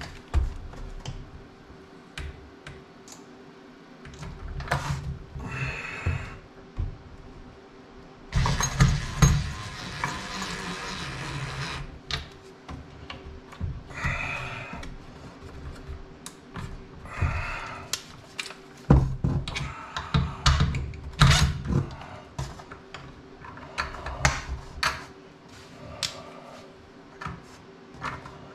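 Clicks, knocks and clatter of tools and hardware being handled, broken by a few short bursts of a drill boring pilot holes, the longest lasting about three seconds near the middle.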